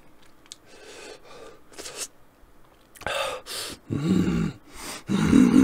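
A man's sharp breaths and gasps through the mouth, a few short bursts, followed by two low voiced grunts near the end.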